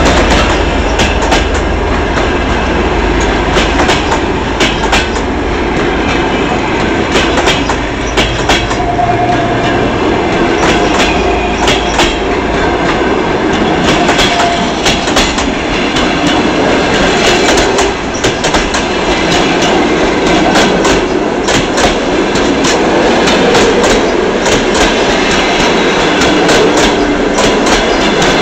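Passenger coaches rolling past at speed: their wheels clicking over rail joints above a steady rolling rumble. The low drone of the 2M62U diesel locomotive fades out in the first few seconds.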